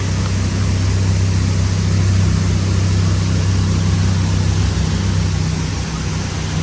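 Pickup truck driving at a steady road speed: a constant low engine hum with road and tyre noise, holding level with no change in pitch.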